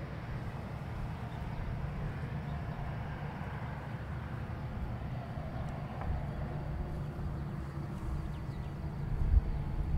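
Boeing 787-8 with Rolls-Royce Trent 1000 engines at idle thrust while taxiing, a steady low rumble with a hiss above it. The low rumble grows louder and more uneven near the end.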